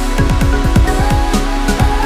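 Electronic dance music with a fast, heavy kick-drum pattern over sustained synth tones.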